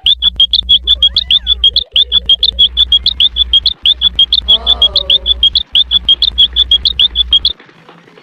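Cartoon sound effect: a rapid, even train of short high-pitched chirps, about seven a second, over a low hum. It stops abruptly about seven and a half seconds in.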